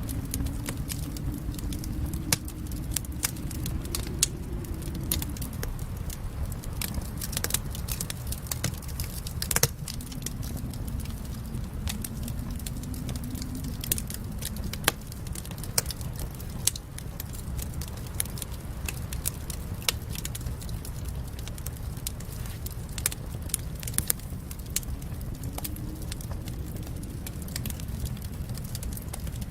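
Wood fire crackling in a fireplace: irregular sharp snaps and pops over a steady low rumble, with one louder pop about ten seconds in.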